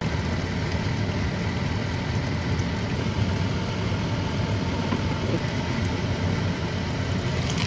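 Steady low hum with an even hiss over it, while pork-stuffed bitter melon rings fry on low heat under a glass lid.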